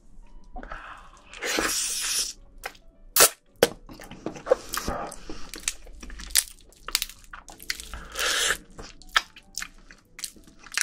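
Close-miked eating of spicy marinated raw crab (yangnyeom gejang): sharp crunches and clicks of shell being bitten and pulled apart, with sticky squelching. Two longer slurping sucks come through, one about a second and a half in and one near the end.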